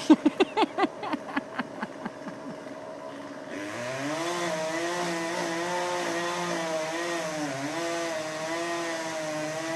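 A quick run of sharp clicks that slows and fades over about two seconds. Then, from about three and a half seconds in, a chainsaw runs steadily, its pitch wavering.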